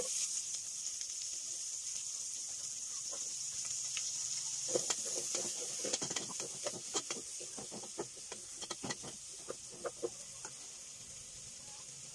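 Sliced onions hitting hot pork fat in a metal pot, setting off a sizzle that starts loud and slowly dies down as they sauté. From about five seconds in, a wooden spatula knocks and scrapes against the pot as the onions are stirred.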